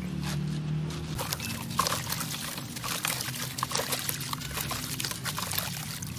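Dry, dusty crumbled dirt pouring and trickling from hands into a plastic tub, a dense grainy crackle with scattered sharper clicks.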